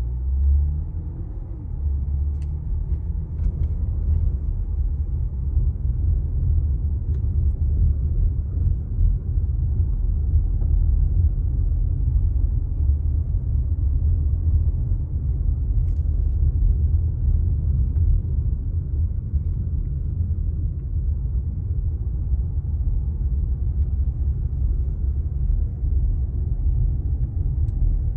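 Low rumble of a car's road and engine noise heard from inside the cabin, growing louder about two seconds in as the car pulls away from a stop, then holding steady as it drives slowly.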